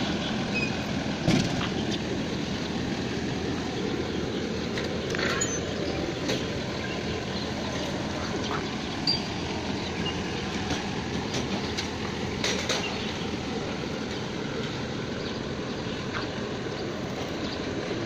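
Steady outdoor background noise, a low rumble with hiss, broken by a few brief knocks or flaps.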